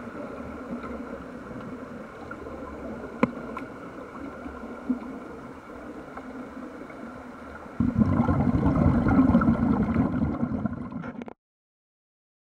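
Underwater bubbling and rumble of air escaping from a Mark V hardhat diving helmet, with a few sharp clicks. It grows much louder about eight seconds in, then cuts off abruptly a little after eleven seconds.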